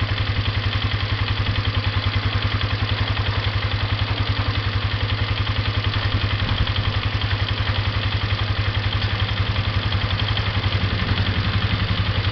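Pickup truck engine idling steadily, with an even, fast throb and a low hum.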